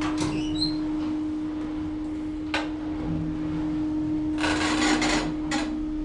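Lift car running with a steady hum under a faint rumble, a sharp click about two and a half seconds in, and a short rush of noise near the end.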